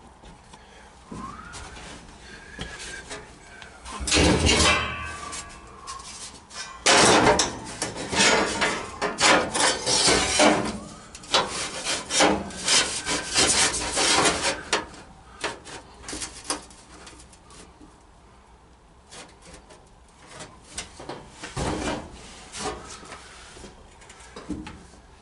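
A paper pattern sheet rustling and crinkling as it is pressed and rubbed by hand against a steel truck floor pan. It comes in loud, irregular bursts through the middle, then quieter handling with one more burst near the end.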